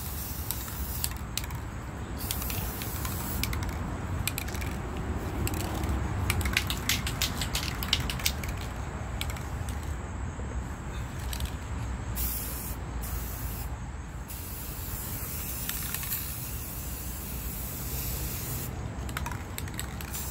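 Aerosol spray paint can spraying in long hissing bursts that stop and start again several times.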